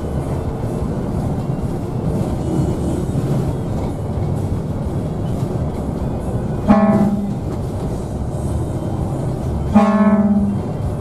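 Scania K360iB bus's horn blown twice: a short blast about seven seconds in and a longer one near the end, each a steady tone rich in overtones, over the steady rumble of the moving bus.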